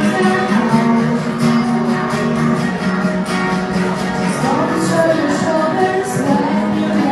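Music with acoustic guitar and singing.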